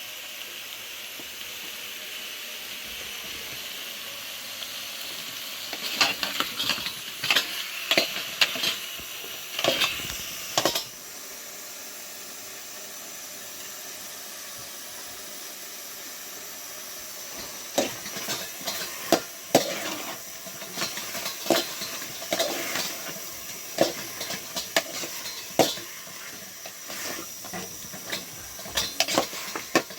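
Dishes and utensils clattering in two spells of quick knocks over a steady hiss.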